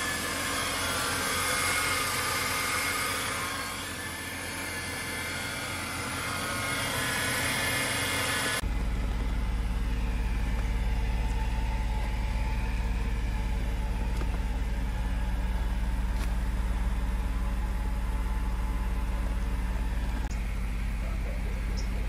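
Mercedes W124 300E's M103 3.0-litre straight-six idling steadily. It is heard first over the open engine bay. After a cut about eight and a half seconds in, it is heard at the tailpipe, where a deep, even exhaust hum is the loudest sound.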